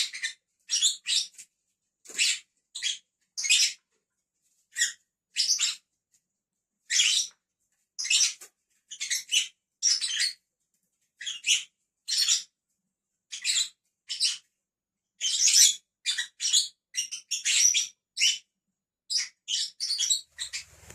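Pet lovebirds chirping: a steady run of short, high-pitched chirps, about one to three a second, with brief silences between.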